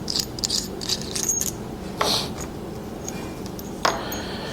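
Light metallic clicks and clinks from the small metal parts of a PL-259 coax crimp connector as they are unscrewed and handled: a run of quick clicks, a brief scrape about two seconds in, and one sharper click near the end.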